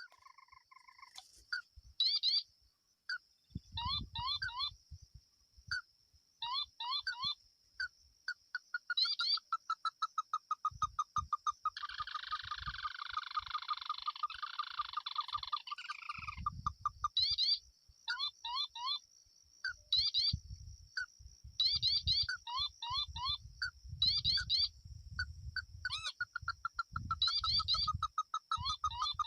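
Animal calls in a flooded rice field: short series of rapid, sharp, repeated notes that come again every second or two, over a steady high-pitched whine, with low thumps on the microphone.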